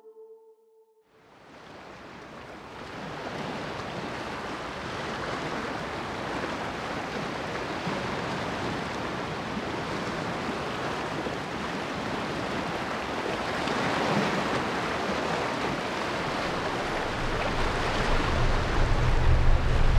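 Surf washing on a sandy shore: a steady noise of waves that fades in after a moment of silence. Near the end, a deep low rumble comes in and grows louder.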